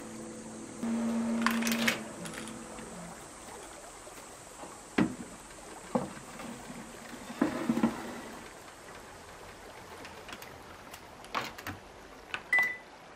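A metal baking tray set with stainless steel cake rings scrapes and clinks as it is handled and slid onto the oven rack, with several sharp metallic knocks. Near the end come a few clicks as the oven is shut and set, and a single short electronic beep from its control panel.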